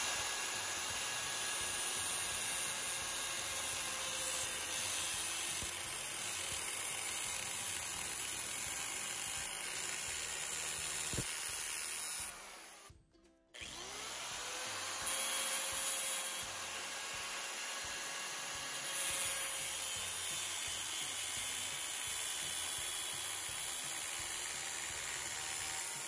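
Angle grinder with a very thin cut-off disc lightly scoring a guide groove around a rusty steel driveshaft tube, giving a steady high whine and grinding hiss. The sound cuts out briefly about halfway through, then starts again.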